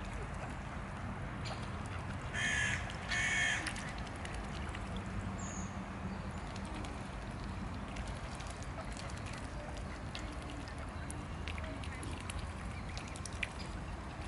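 Two short harsh bird calls in quick succession a little over two seconds in, over a steady low rumble, followed by scattered small clicks and splashes from mute swans dabbling and picking greens at the water's surface.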